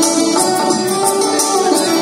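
Loud live music from a stage performance: held melodic notes over steady percussion strokes, about three a second.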